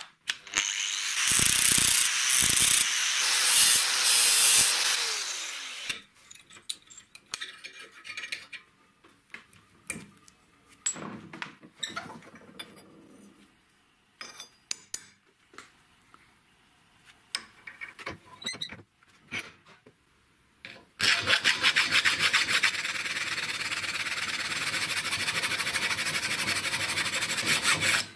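A hand tool rasping on steel in a bench vise for about six seconds, then scattered metal clicks and knocks as the piece is handled, then steady rasping again from about three-quarters of the way in to the end.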